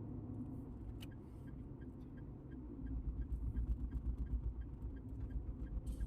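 Low rumble, louder and unsteady from about halfway through, with a faint regular ticking about four times a second.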